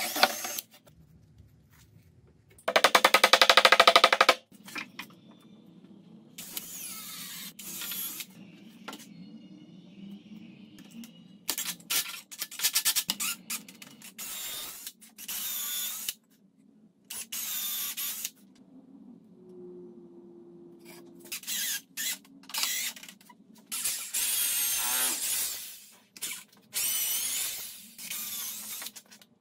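Cordless drill-driver driving screws into a wooden table frame, in repeated bursts. The motor whine rises and falls as the trigger is worked, and about three seconds in there is one loud burst of rapid clicking.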